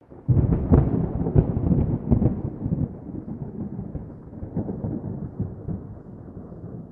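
Thunder-like rumble of an intro sound effect: it starts suddenly about a quarter second in with several sharp cracks over a deep rumble, loudest in the first two to three seconds, then dies down to a lower rolling rumble.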